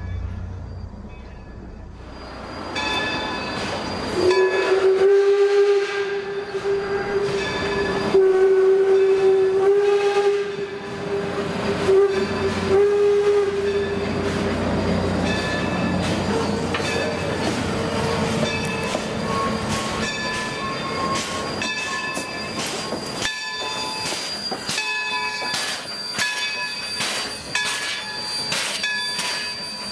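Passenger coaches of a steam train rolling slowly past on jointed track: long squealing tones from the wheels on the rails, and about halfway through a run of clicks as the wheels cross the rail joints.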